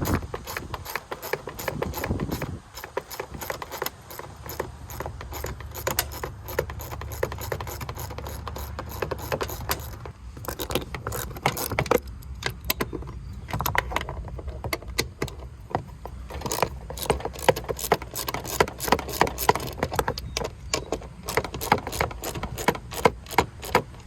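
Ratchet wrench with a 10 mm socket clicking, and tools clinking against metal, as bolts on a riding mower's deck are worked loose. The clicks come in quick irregular runs.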